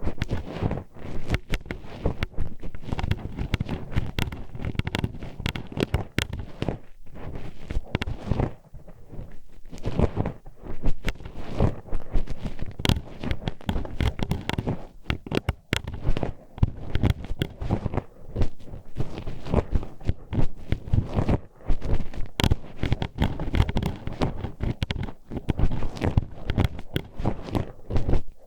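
Metal hairpin poked and scraped inside a binaural microphone's ear, giving dense, irregular clicking and scratching right at the mic.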